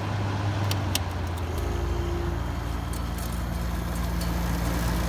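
1977 Fedders casement Weather Wheel window air conditioner running on low fan. There is a click just before a second in, and about a second and a half in a deeper steady hum joins as the compressor starts. The unit vibrates heavily.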